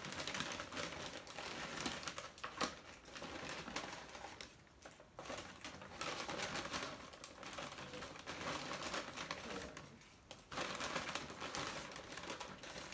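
Paper takeout bags rustling and crinkling as they are unpacked, with small clicks and taps of cardboard nugget boxes and plastic sauce cups set down on the table. The rustling eases off twice, about five seconds in and again near ten seconds.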